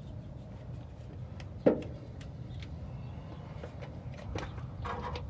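A screwdriver and hands working on an old Edelbrock 1406 carburetor: scattered light clicks and rustles, with one sharp metallic knock a little under two seconds in, over a low steady rumble.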